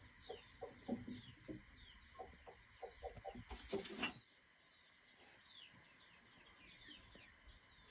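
Chickens clucking faintly in short, repeated clucks, with high falling chirps throughout. A brief noise about four seconds in, after which the clucking stops and only the chirps go on.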